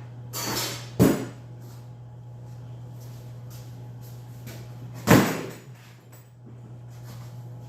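Two sharp bangs about four seconds apart, each dying away briefly, over a steady low hum.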